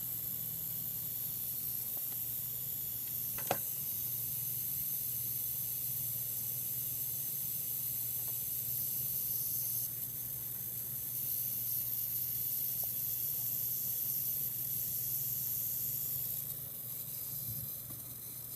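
Scythe SPCRN-600 computer power supply making an abnormal noise: a steady, very high-pitched hiss-like whine over a low hum, with one sharp click about three and a half seconds in. The whine shifts about ten seconds in and eases off near the end.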